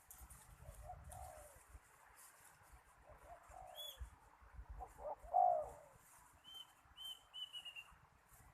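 Spotted doves cooing in short low phrases, the loudest about two thirds of the way through, with a small bird's thin high chirps in between.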